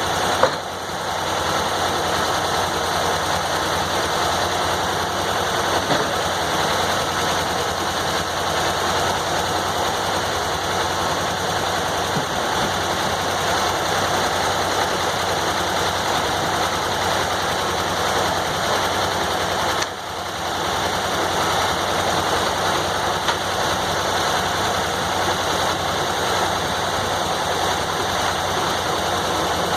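Sawmill's engine-driven power running steadily. The level dips briefly twice, about half a second in and again about two-thirds of the way through.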